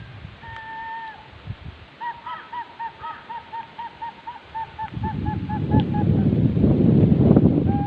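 A bird calling: one drawn-out whistled note, then a run of short whistled notes at about four a second that slow and fade. From about five seconds in, wind buffets the microphone loudly.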